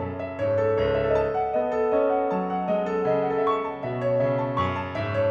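Roland F-140R digital piano playing a slow piece in its acoustic piano tone: sustained chords, with the bass note changing about once a second.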